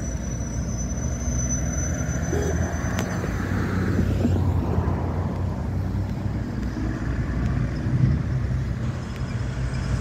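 Highway traffic with cars and trucks driving past: a steady engine rumble and tyre noise that swells about four seconds in.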